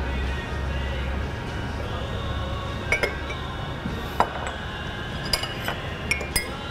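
Teaspoons clinking against china coffee cups and saucers as coffee is stirred: a handful of light, separate clinks, most of them in the second half, over soft background music.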